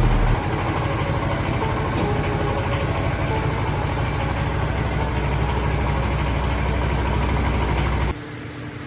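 An engine idling steadily, a low rumble that cuts off suddenly near the end.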